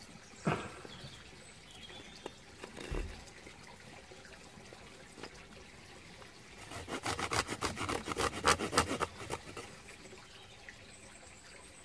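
Folding bushcraft saw cutting a wooden spoon blank in a quick run of short strokes, about eight a second, for a couple of seconds past the middle. A single knock about half a second in.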